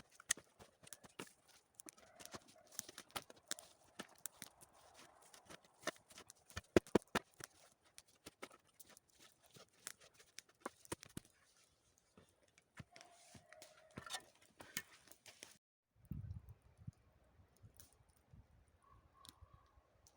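Shovel digging steps into forest earth: a run of irregular sharp chops, crunches and scrapes, several a second, stopping abruptly about fifteen seconds in. A brief low rumble and a few faint ticks follow.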